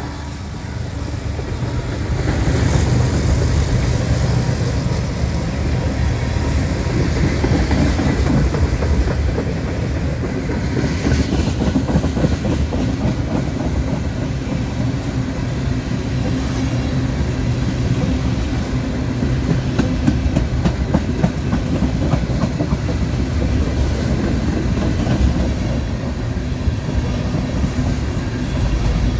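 Freight train passing close by. A diesel locomotive goes by at the start, then a long string of tank cars rolls past with their wheels clacking irregularly over the rail joints.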